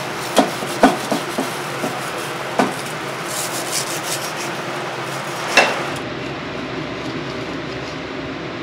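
Wild boar meat being carved with a long knife on a cutting board: the blade scrapes through the meat, and the knife and meat knock against the board several times in the first three seconds, with one louder knock at about five and a half seconds. A steady background noise runs underneath.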